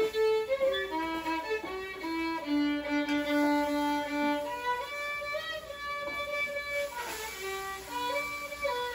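Background violin music playing a melody of separate held notes.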